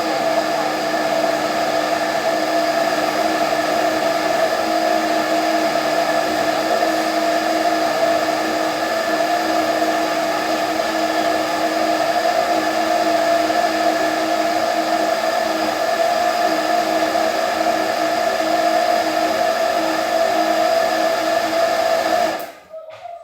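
Countertop blender motor running at a steady speed while it purees grated onion and oil into a paste, then switched off near the end.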